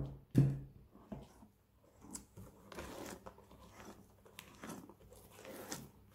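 A silicone spatula folding stiffly whipped egg whites into a thick egg-yolk and sugar batter in a glass bowl: soft, irregular wet squelching and scraping. Two dull knocks come in the first half-second.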